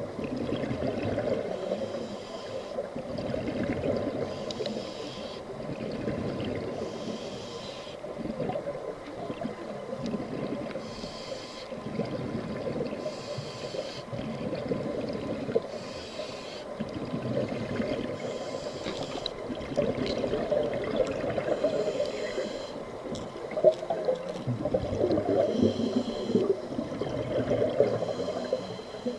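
Scuba diver breathing through a regulator underwater: a hiss on each inhale and a bubbling rush on each exhale, repeating every few seconds.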